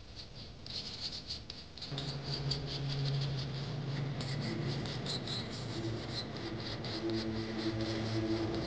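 Stiff brush scrubbing a soap-foamed small engine in quick, repeated scratchy strokes. About two seconds in a steady low motor hum starts underneath and keeps going.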